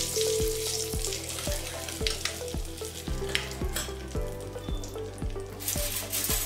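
Turmeric, asafoetida and a bay leaf sizzling in hot oil in a steel kadai, stirred with a metal spatula at the start.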